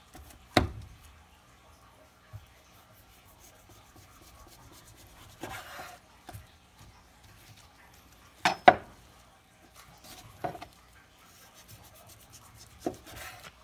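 Knife and beef knocking on a wooden cutting board while steaks are trimmed: a heavy thud about half a second in, a sharp double knock a little past the middle, and a few lighter knocks, with faint rubbing of the blade and meat on the board between.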